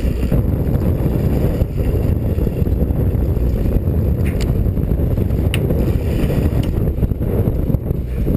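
Steady low rumble of wind on the microphone and the sea around a sportfishing boat, with two faint ticks about halfway through.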